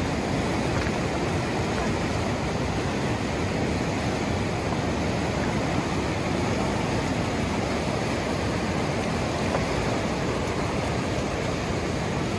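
Fast river rushing over rapids: a steady, unbroken wash of water noise.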